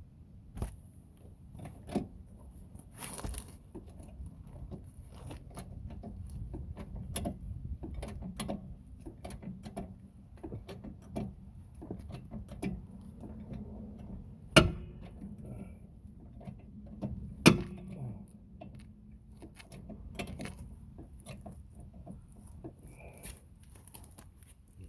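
Metal hand tools and car parts being handled, with scattered light clicks and rattles. Two sharp metallic clanks come a bit past halfway, about three seconds apart, and the second rings briefly.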